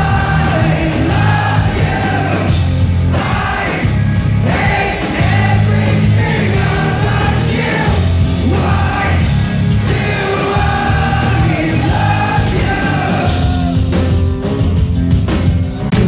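An alternative rock band playing live at full volume: distorted electric guitars, bass and drums under a sung lead vocal, heard from within the concert crowd.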